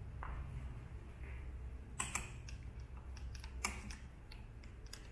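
A few light, separate clicks and taps, the two clearest about two seconds in and past the middle, from handling as fingers and a small wooden-handled tool work the lacing thread of a leather lever cover, over a faint low hum.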